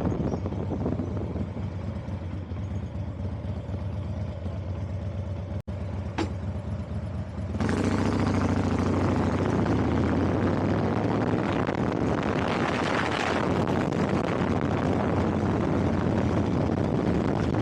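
A vehicle on the move: a steady low engine hum under road noise, which grows louder and fuller about seven and a half seconds in.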